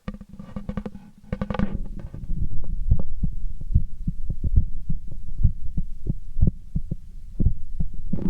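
A man's heartbeat heard through a stethoscope on the chest: regular deep thumping beats. About the first two seconds also carry a scraping, rustling noise, which fits the chest piece being handled on the skin.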